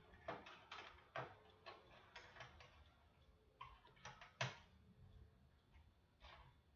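Faint, irregular small clicks and taps of hands working on a fire alarm device and its wiring, a few a second, with a sharper click about four and a half seconds in.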